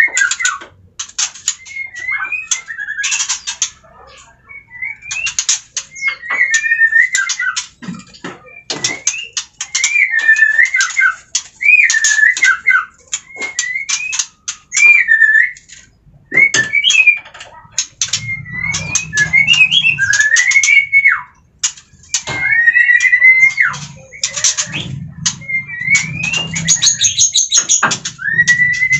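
White-rumped shama parent birds calling over and over, agitated at their nest box being opened for the chicks: repeated rising-and-falling whistled notes mixed with rapid clicking.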